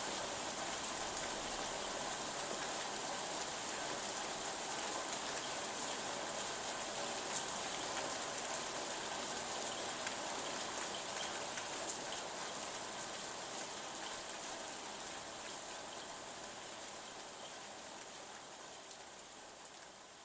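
Steady rain falling, with scattered individual drops ticking through it, fading out gradually over the last several seconds.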